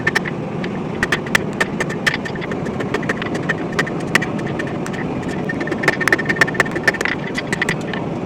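Hammer blows on hot rebar over an anvil, drawing out a thin stem. The strikes come in runs, several a second, each with a ringing tone, and pause briefly a little past the middle. A steady rushing noise runs under them.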